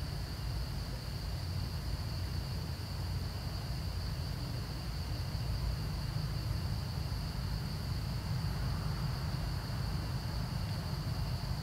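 A steady, high-pitched insect drone over a low, constant rumble, with no distinct calls or knocks.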